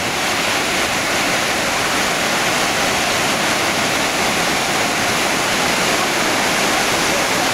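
Sea surf: a steady, unbroken rush of breaking waves.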